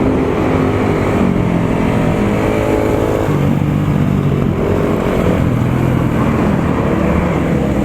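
Motorcycle engine running while riding in traffic, its pitch shifting up and down in steps, over road and wind noise.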